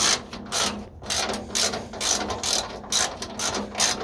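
Hand ratchet wrench clicking in repeated short strokes, about two a second, as it backs out 10 mm bolts from a car's under tray.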